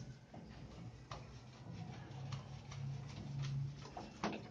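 A wet dog being scrubbed by hand in a plastic tub of water: a few sharp clicks and small splashes, over a low hum that grows louder about three seconds in.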